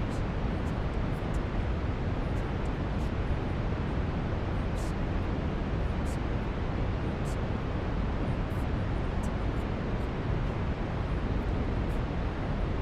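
Steady brown noise: an even, deep rushing hiss that doesn't change, with faint short high-pitched ticks now and then.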